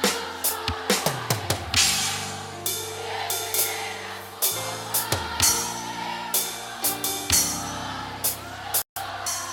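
Forró gospel music: a drum kit played on the RealDrum electronic drum app, with bass drum, snare and cymbal hits in a steady beat over held bass and chord notes from the backing track. The sound cuts out for a moment about a second before the end.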